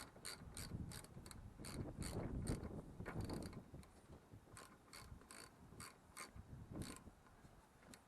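Ratchet wrench clicking in short runs of about three clicks a second as it is worked back and forth on a fastener, with a pause partway through and some low handling noise.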